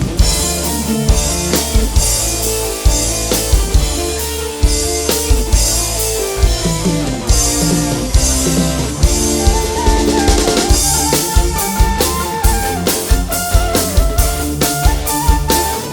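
Band playing loud instrumental music through a large PA sound system during a sound check: a steady drum-kit beat with bass drum and rimshots under bass, guitar and a melody line that comes forward about two-thirds of the way in.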